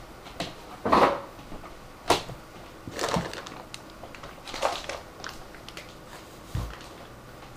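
Handling noise of cardboard packaging being moved and set aside: a handful of separate knocks and rustles, with a dull thump near the end.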